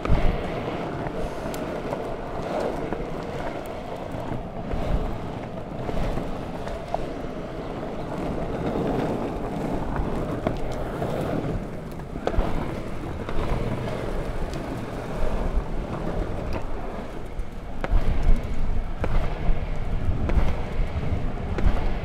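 Longboard wheels rolling over asphalt and brick paving, a steady rumble with short knocks over joints and bumps, louder in a rough stretch near the end. Wind noise on a microphone mounted low on the board.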